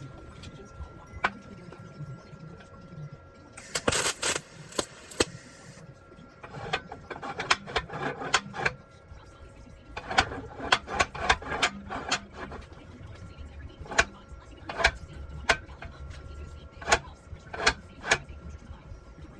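Sharp metal clanks and taps at an uneven pace, with a short harsh hiss about four seconds in, from steel parts of a smoker fire-door latch being worked and fitted.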